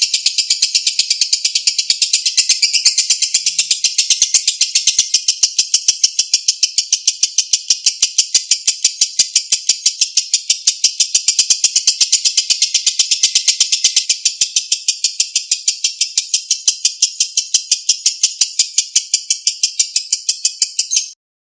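Lovebird giving a long 'ngekek' chatter: a fast, even rattle of shrill chirps held for about twenty seconds without a break, ending suddenly near the end.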